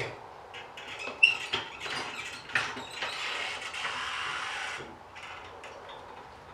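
Metal knocks and clanks, then a scraping rush lasting about two seconds, as a heavy truck door is set onto a jack and shifted into place.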